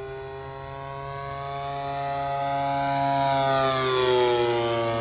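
Single-cylinder two-stroke 52cc Turnigy gas engine and propeller of a giant-scale RC Piper Super Cub flying past. The drone grows louder to a peak about four seconds in, and its pitch drops as the plane goes by.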